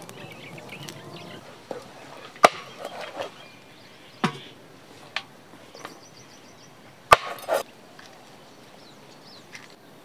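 Knife blade striking a wooden chopping board: about six separate sharp chops, a second or two apart, the loudest about two and a half and seven seconds in.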